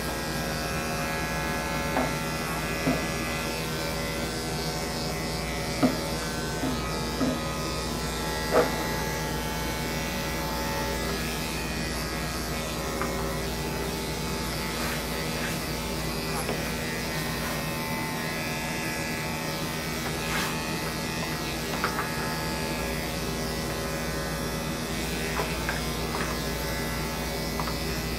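Electric dog grooming clippers running with a steady hum as they shave through matted fur, with a few brief sharp clicks in the first nine seconds or so.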